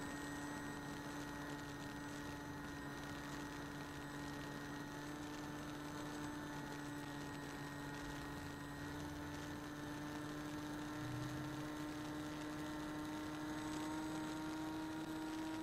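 Electric motor and propeller of a Bixiler 2 RC plane in cruise: a steady hum whose pitch creeps slightly higher near the end.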